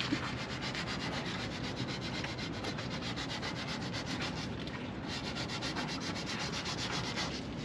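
Sandpaper rubbing on teak wood: continuous scratchy sanding in fast, even strokes.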